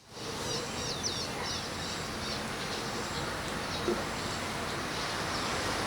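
Long-tailed parakeet giving a quick series of short, high chirping calls in the first two seconds, then a few fainter ones, over a steady background hiss of noise.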